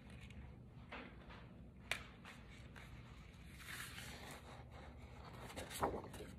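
Faint hand-crafting sounds of copper tape and cardstock being worked: scattered light taps and clicks, a sharper click about two seconds in and another near the end, and a short soft rustle midway, over a low steady hum.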